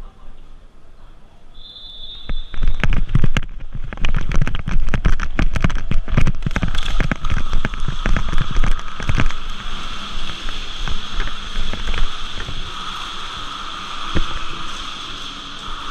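Airsoft guns firing rapid runs of sharp shots, starting a couple of seconds in and thinning out after about nine seconds.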